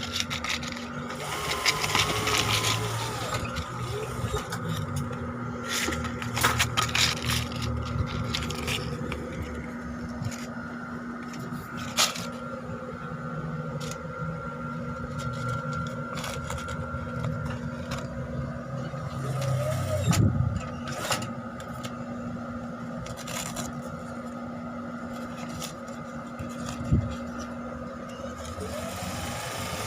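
A steady mechanical hum with a higher tone above it, a low rumble that comes and goes, and scattered clicks and knocks. A short rising-and-falling pitched sound comes about two seconds in and again near the end.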